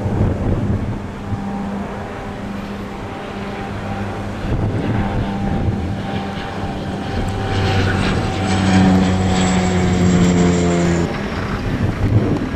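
High-wing twin-turboprop airliner climbing out overhead: a steady propeller drone with a turbine whine, the pitch sliding gently down as it passes. The engine tones cut off abruptly a little before the end.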